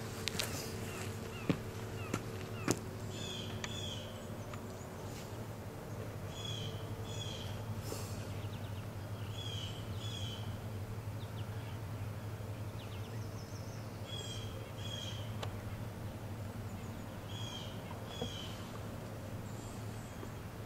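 A bird calling outdoors, short two-part calls repeated every few seconds, over a steady low hum. A few sharp clicks sound in the first three seconds.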